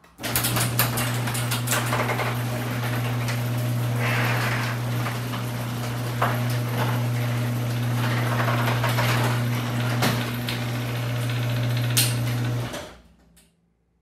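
Chain-drive garage door opener closing a freshly lubricated sectional garage door: a steady motor hum with chain and roller rattle. There is a click near the end as the door reaches the floor, and the motor cuts off. The door closes all the way without stopping.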